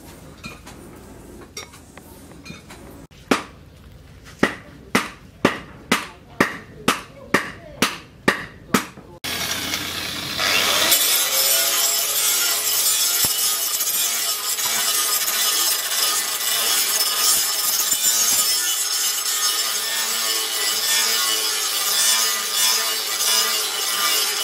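About a dozen ringing hammer blows, roughly two a second, on a steel cleaver blade cut from a tractor disc, struck on an anvil. Then an angle grinder spins up and runs steadily, its disc grinding the steel of the blade.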